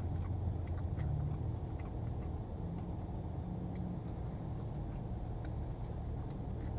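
Someone chewing a mouthful of burrito, with faint scattered wet mouth clicks, over a steady low hum inside a parked car.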